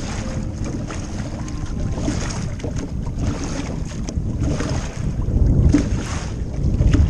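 Wind buffeting the microphone in a steady low rumble, with water lapping against the hull of an aluminium bass boat and a few short knocks or splashes.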